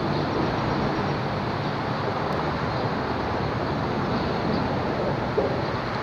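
Steady rumble of road traffic passing over the BR-101 highway bridge, heard from beneath the bridge deck.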